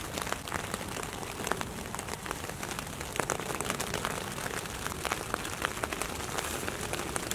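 Rain falling on tent fabric, heard from inside the tent: a steady hiss with many separate drop taps.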